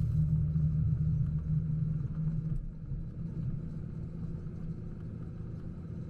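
A car driving along: the steady low rumble of engine and road noise, easing off over the first few seconds.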